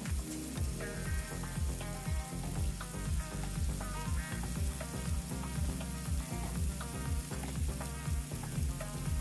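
Sliced zucchini, mushrooms and asparagus sizzling in an electric skillet, stirred with tongs, under background music with a steady beat of about two pulses a second.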